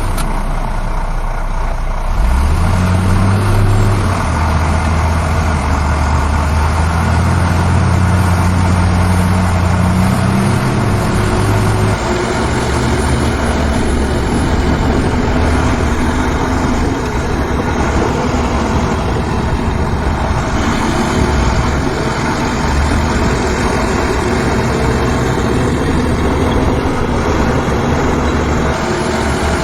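Heavy diesel machinery engines running under load. The engine note rises about two seconds in and eases back after about twelve seconds.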